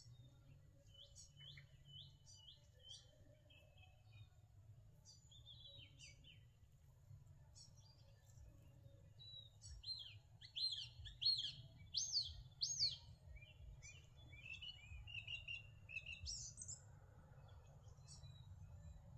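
Small birds chirping and singing: scattered quick high notes, with a burst of louder sharp chirps a little past halfway.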